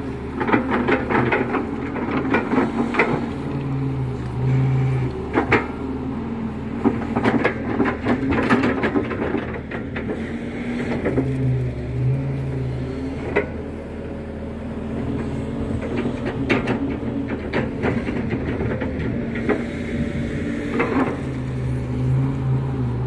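Kato HD512 crawler excavator's diesel engine running steadily while it digs wet mud. A heavier, deeper engine note comes in three times, and knocks and clanks from the bucket and tracks are scattered throughout.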